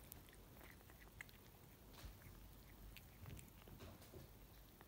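Faint, irregular crunching and clicking of cats chewing fresh cat grass.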